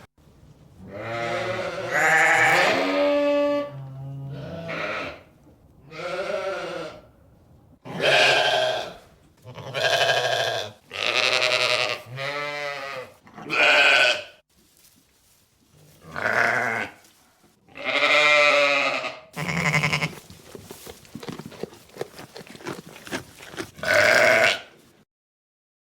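Bleating livestock: about ten wavering calls, each lasting up to a second or so, some loud and some softer.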